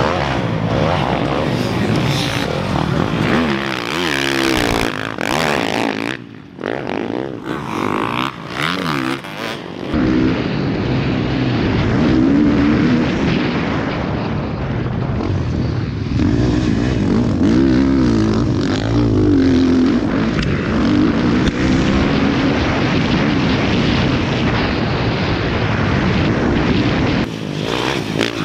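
Motocross dirt bike engines racing, revving up and down in pitch as the riders work the throttle through jumps and turns. For much of it a single bike is heard close up from on board, its engine note rising and falling over and over.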